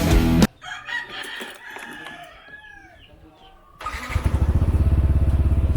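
Rock music cuts off about half a second in, then a rooster crows. Near the end a Yamaha NMAX scooter's single-cylinder engine starts and settles into an even idle through a JVT aftermarket exhaust pipe set to its quietest position.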